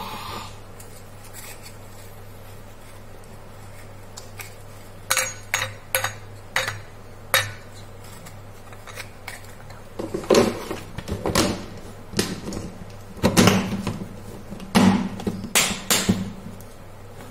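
Kitchen clatter of a steel plate, dishes and a plastic container being handled as biscuits are set out: a few sharp clicks about five seconds in, then a run of louder knocks and clunks over the last seven seconds, with a steady low hum underneath.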